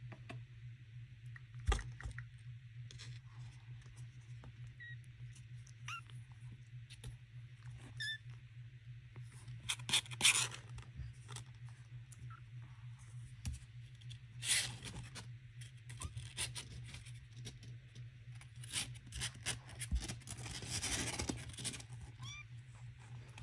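Young kittens moving about in a cardboard box: scratchy rustling and knocks of paws on cardboard and blanket, with a few faint, short high mews, over a steady low hum.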